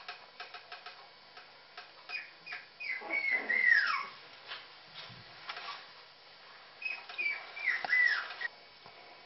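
Puppies whimpering: high-pitched, falling squeals in two bouts, about three seconds in and again near the end, with a few small clicks before them.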